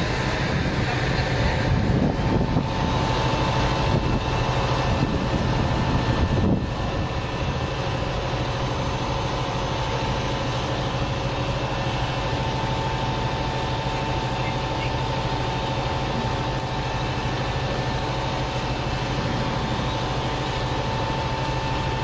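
Fire engine's engine running steadily with a constant low drone and a faint steady whine above it. There is some uneven low rumbling during the first six seconds or so.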